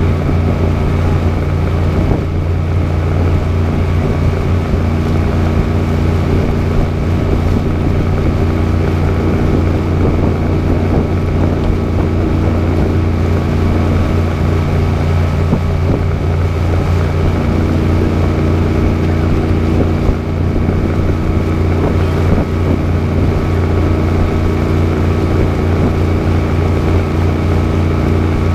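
Tour boat's engine running steadily while the boat is underway: a constant low hum with steady tones above it.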